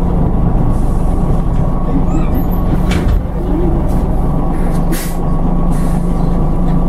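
Scania N94UD double-decker bus on the move, heard from inside the lower deck: a steady low engine and road rumble with a faint steady whine. Two short sharp sounds come about three and five seconds in.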